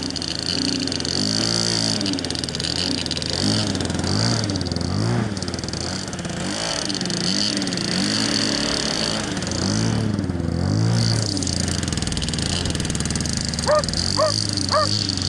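Motor and propeller of a radio-controlled model Cessna 152 in flight, its pitch rising and falling again and again. Near the end there are three short yelps.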